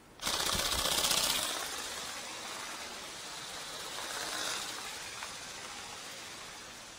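Go Go Bird RC ornithopter's electric motor and flapping wings buzzing as it is released from the hand and flies off. The sound starts suddenly and is loudest at first, swells again briefly about four and a half seconds in, then fades.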